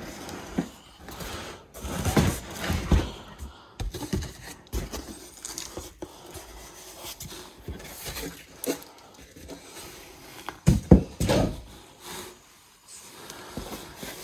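Cardboard box flaps and a cardboard insert being handled: rubbing, scraping and a few thumps, the loudest knocks about eleven seconds in, with paper rustling as the instruction manual is drawn out.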